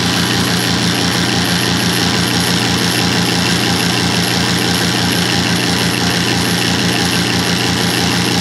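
A 1986 Kenmore 60 Series direct-drive washer agitating with water in the tub: its motor and transmission run with a steady hum and a fast, even low throb.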